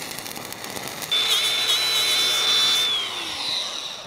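Faint crackle of a stick-welding arc. About a second in, an angle grinder cuts in with a steady high whine, runs for about two seconds, then winds down with falling pitch.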